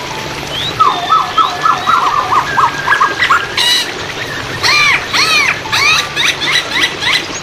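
A Chinese hwamei (poksay hongkong) singing: a run of quick dipping whistled notes, about five a second, then from about halfway loud arching whistles and faster notes. A steady hiss of flowing water runs underneath.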